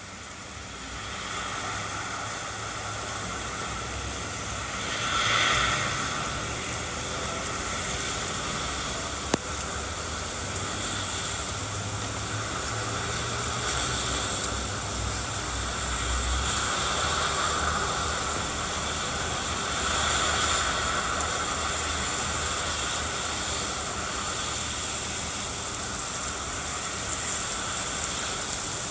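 Steady rain falling, a continuous even hiss that swells briefly about five seconds in.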